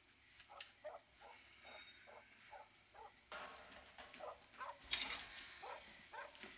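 Faint footsteps, about three a second, then a short sharp clatter about five seconds in as the lobby's street door is opened and a man comes in.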